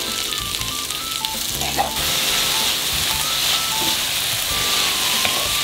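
Sliced onions sizzling steadily in butter in a frying pan over low heat as they are stirred and turned with a wooden spatula.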